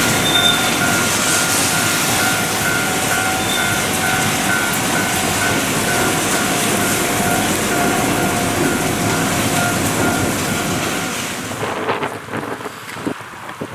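Ohmi Railway 800-series two-car electric train (set 806F) running past on the rails, with a steady rushing noise of wheels and motors. An evenly repeating two-tone ding sounds through it. About eleven seconds in, both drop away to quieter wind noise.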